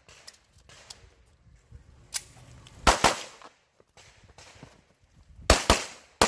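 Pistol shots: one shot just before the three-second mark, then a quick pair about five and a half seconds in and another right at the end, with a few fainter, sharp cracks before them.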